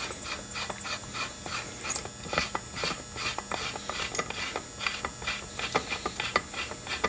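The threaded fan end of an H4 LED headlight bulb being screwed back on by hand, its threads giving a run of small, irregular clicks and rubbing scrapes.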